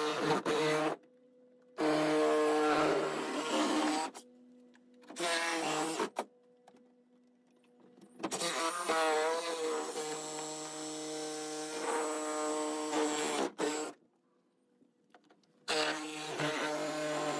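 Cordless power saw cutting through a wooden sailing dinghy's deck and hull, its motor buzzing in five separate runs with short pauses between cuts. The longest cut runs about five seconds in the middle, its pitch wavering briefly as the blade bites.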